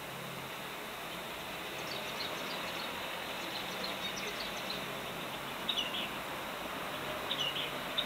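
Small birds chirping: short, high chirps, faint at first and then in a few louder clusters in the second half, over a steady background hiss.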